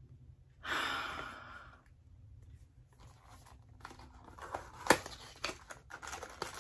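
Small cardboard blind box being pulled open by hand: scattered rustles and scrapes, with one sharp snap of the flap about five seconds in. About a second in there is a short rush of noise that fades over a second.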